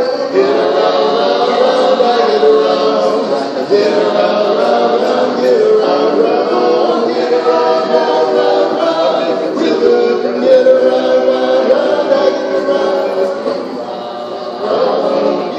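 Male a cappella quartet singing in close harmony, holding long chords that shift pitch every second or so. It drops quieter about thirteen seconds in and swells back up near the end.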